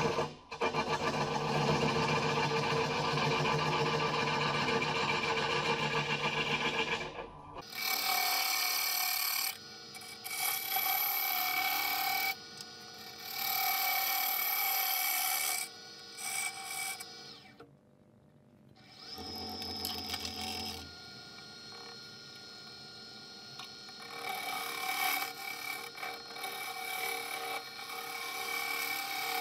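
Gouge cutting a maple bowl blank spinning on a Powermatic wood lathe: one long continuous cut, then a run of shorter cuts of a few seconds each with brief pauses between them, and a quiet gap about two-thirds of the way through before cutting starts again.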